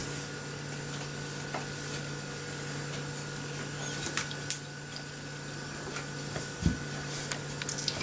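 Wooden rolling pin rolling out pie pastry on a wooden board: a soft rubbing roll with a few light knocks and one low thump, over a steady low hum.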